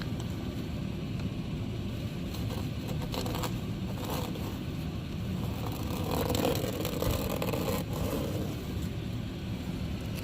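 Car driving, heard from inside the cabin: a steady low road and engine rumble, with a few brief clatters.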